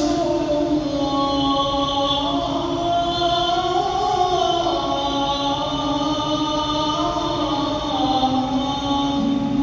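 A man's voice chanting over the mosque's loudspeakers: long held melodic notes that rise and fall slowly, in the style of a muezzin's call or Quran recitation.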